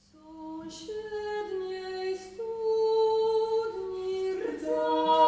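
A mezzo-soprano sings slow held notes without accompaniment, stepping between a few pitches, with short hissing consonants between the notes. It is the opening of a largely atonal contemporary art song.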